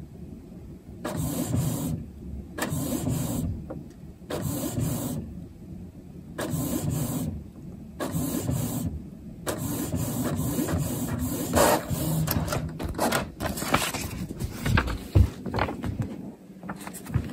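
Colour inkjet printer printing a full-page colour sheet: the print head whirs across in repeated passes of about a second each with short pauses, then runs more continuously. Near the end the finished page is handled with some paper rustling.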